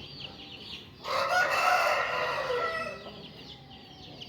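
A rooster crows once, starting about a second in and lasting about two seconds, the call dropping in pitch as it ends. Behind it, other chickens keep up a fast, high cheeping.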